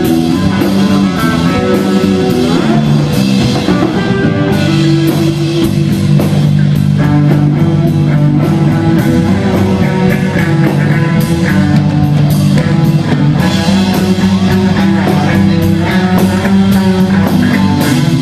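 Live rock band playing a loud improvised jam: guitar over sustained low notes and a drum kit with cymbals.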